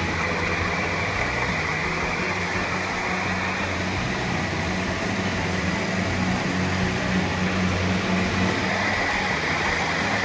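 Small tracked rice combine harvester running steadily while cutting and threshing rice: a constant engine drone with a steady high whine over it.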